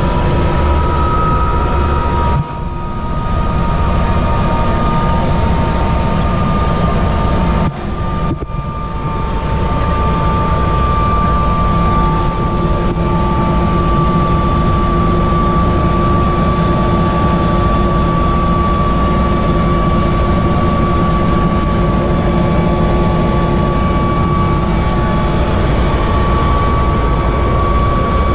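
Helicopter in flight: steady turbine whine over the drone of the rotor, with two brief dips in loudness.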